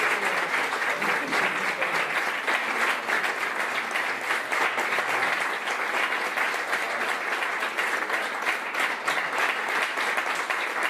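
Audience applauding: many hands clapping in a dense, steady patter that keeps going without a break.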